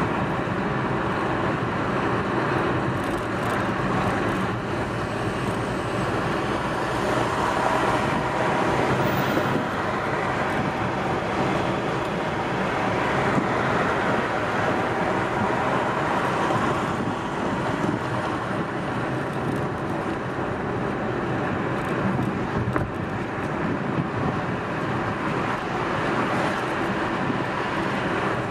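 A car driving steadily on a paved road: continuous tyre and road noise with a low engine hum.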